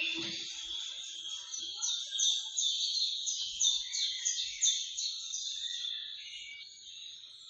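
A steady high-pitched chirring chorus of wild animals, with a run of sharp, evenly repeated chirps about three a second in the middle that fade out toward the end.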